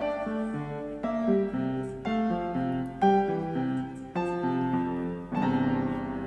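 Background music: a piano melody with chords, notes struck at an easy, even pace.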